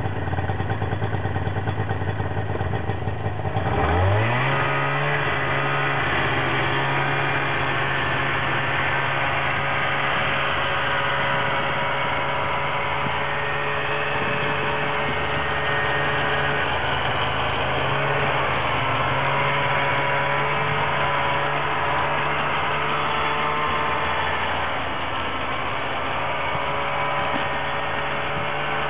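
Arctic Cat snowmobile engine running at a low, steady pitch, then revving up about four seconds in and holding a steady higher pitch as the sled drives across the snow.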